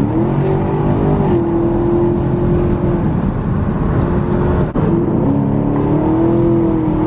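Chevrolet Camaro V8 with a manual gearbox accelerating hard. The engine note rises, holds, cuts briefly about two-thirds of the way through at a gear change, then climbs again.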